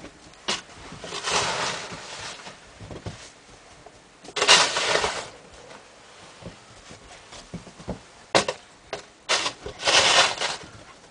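Snow shovel scraping and pushing snow over the ground in three strokes, the loudest about four and a half seconds in, with a few short knocks between.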